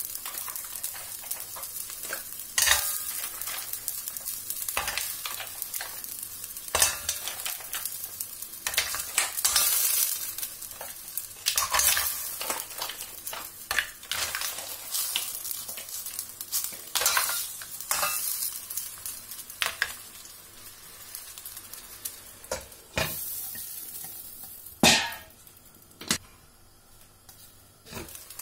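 Live mussels in their shells being dropped into a stainless steel pan of boiling water and oil: the shells clatter against each other and the pan over a steady sizzle of the hot liquid. A loud knock comes near the end, after which the sizzle is quieter.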